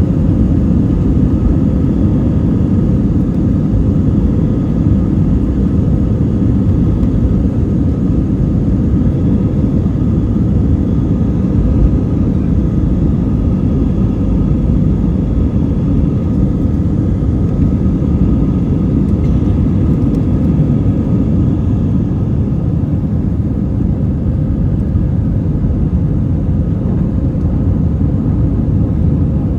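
Airbus A319 heard from inside the passenger cabin: a steady, loud, low drone of jet engines and airflow, with faint steady whines above it.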